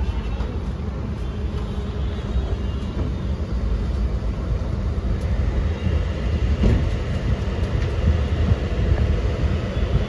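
Hyundai Venue turbo petrol engine idling roughly and misfiring, with an uneven, shaky low rumble. The misfire is traced to weak spark from the spark plugs of cylinders one and two.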